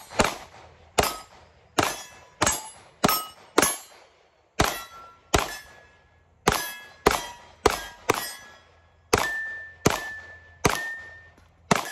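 Sig Sauer P365 X Macro 9mm pistol fired about fifteen times at a steady pace, roughly one shot every two-thirds of a second. Many of the shots are followed by the ring of a steel target being hit.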